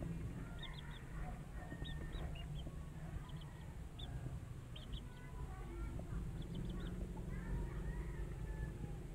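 Young Kelso gamefowl cockerels peeping: faint, short, high chirps in twos and threes, repeated every second or so.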